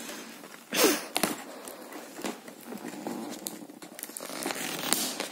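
Fingers picking and peeling tape off a cardboard toy box: irregular scratching and crackling, with one louder ripping rasp about a second in.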